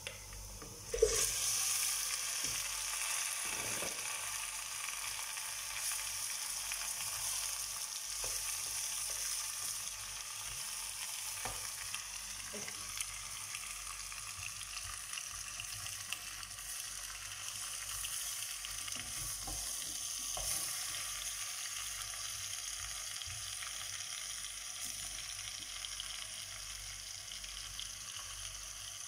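Raw chicken feet hitting hot oil in a stainless steel pot, sizzling sharply about a second in, then settling into a steady frying hiss that slowly eases. A spatula knocks and scrapes now and then as the feet are stirred.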